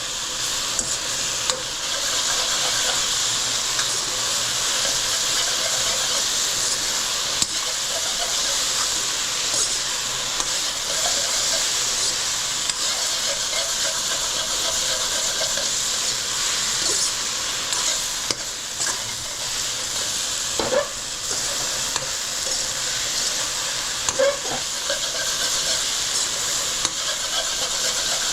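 Tofu and vegetables sizzling steadily in a hot pan with sauce, stirred, with a few light knocks of the utensil against the pan.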